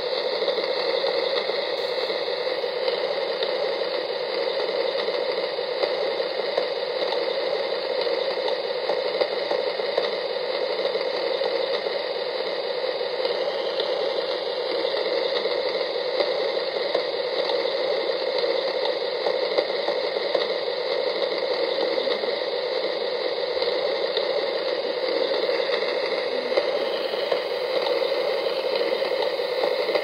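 Rain falling steadily, an even hiss of many drops with no let-up.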